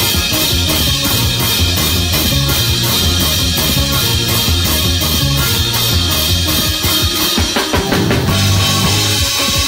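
Praise-break music: a drum kit driving a fast, steady beat over low bass notes. The pattern breaks up about eight seconds in, then the beat carries on.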